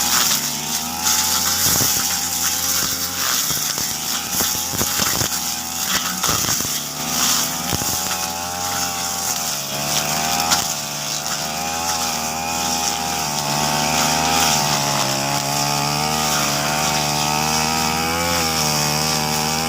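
Petrol brush cutter running at high speed while cutting grass, its engine pitch wavering up and down under load. Sharp clicks come through between about two and seven seconds in.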